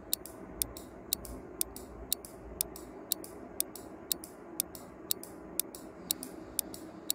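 Clock-tick sound effect of a quiz countdown timer, sharp even ticks about twice a second, over a faint steady hum.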